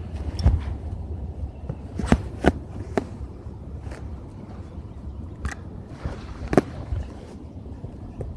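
Footsteps and knocks from handling a phone while walking, scattered and irregular, over a low steady rumble of wind on the microphone.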